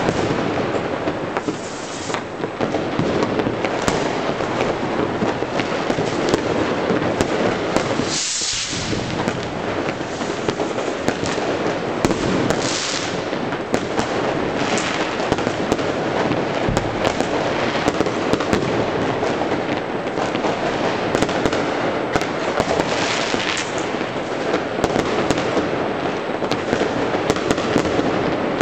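Consumer fireworks and firecrackers going off all over a city: many overlapping distant bangs and crackles merge into a continuous din, with sharper single bangs throughout and several brief hisses.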